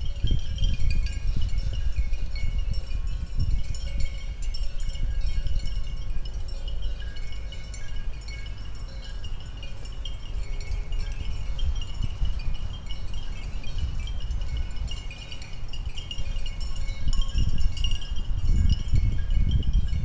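Wind buffeting the microphone in a low, uneven rumble, with a steady high-pitched tinkling ringing over it.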